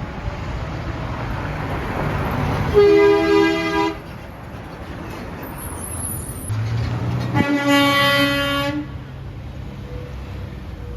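Semi-truck air horn blown twice, each blast just over a second long and sounding several tones at once, about four seconds apart. Passing truck and engine noise runs underneath.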